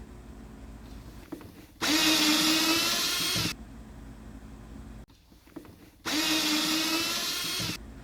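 Cordless power drill or driver running in two bursts of about two seconds each, a steady motor whine that starts and stops abruptly.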